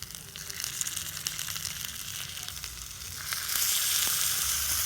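Food frying in hot oil in a miniature pan: a steady sizzle with fine crackles, which grows clearly louder a little over three seconds in.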